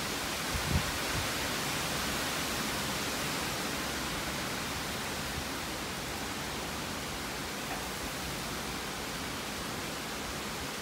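Tropical-storm wind rushing steadily through tall pines and leafy trees, an even hiss, with a couple of brief low wind buffets on the microphone about a second in.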